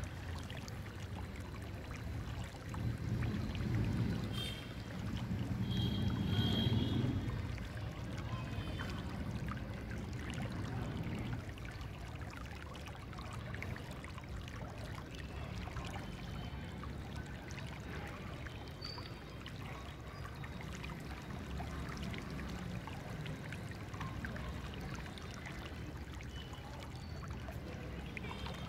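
Outdoor background noise: a steady low rumble that swells for a few seconds near the start, with a few faint high chirps.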